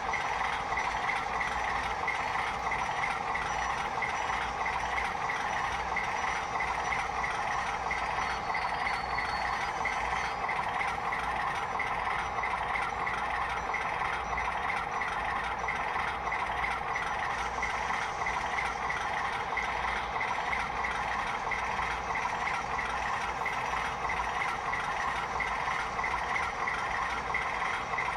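Model railroad trains running: a steady mechanical rattle and whir with no breaks or sudden sounds.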